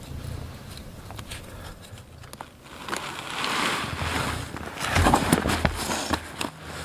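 Canvas backpack and its straps rustling and knocking as the pack is lifted and hung on a cord tied around a tree trunk, loudest with several sharp clicks about five seconds in.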